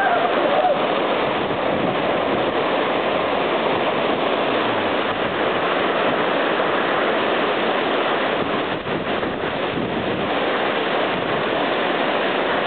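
Waterfall pouring down at close range: a steady, loud rush of falling water.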